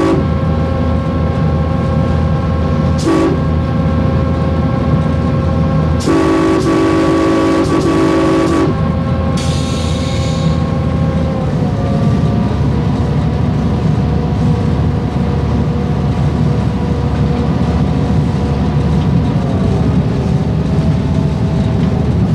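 EMD E8 diesel locomotive under way, heard from the cab: a steady engine drone and rail rumble under air-horn blasts. The end of one long blast comes right at the start, then a short blast about three seconds in and a long blast of about two and a half seconds starting about six seconds in. The engine note then drops in pitch, and steps down again near the end.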